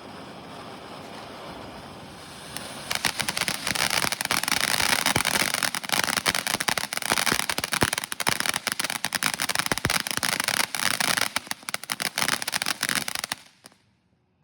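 A consumer firework going off with a dense, rapid crackle of sharp pops for about ten seconds, then stopping abruptly. A steady hiss comes first, for the first couple of seconds.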